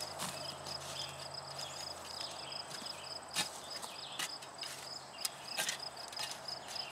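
Insects chirping in a steady, rapid, high-pitched pulsing trill, with a scattering of sharp knocks and scrapes, the loudest about halfway through.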